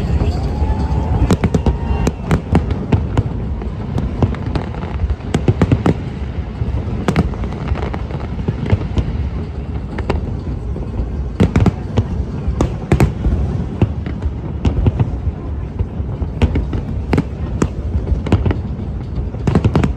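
Aerial fireworks display: a continuous rumble of shells going off, with many sharp bangs at irregular intervals throughout.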